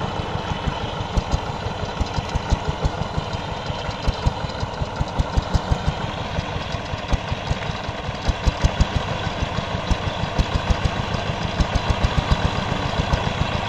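Two-wheel power tiller's single-cylinder diesel engine running steadily under load as the tiller drives through the mud, a fast, even chugging beat of exhaust pulses.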